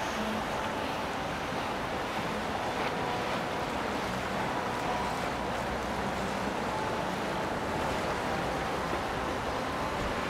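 Steady rush of water and wind with a faint, even engine hum from a boat on the river.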